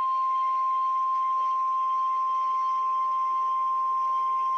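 NOAA Weather Radio warning alarm tone: a single steady 1050 Hz tone from the weather radio, signalling that a severe thunderstorm warning is about to be read.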